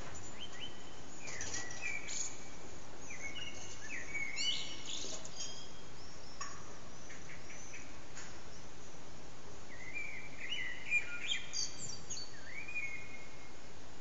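Common blackbird singing: two bursts of song made of short gliding phrases with higher twittering notes, the first starting just after the beginning and the second about ten seconds in, over a steady background hiss.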